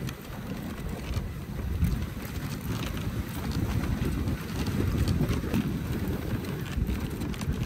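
Dog sled running over packed snow: a steady rumble and hiss from the runners, with wind buffeting the microphone.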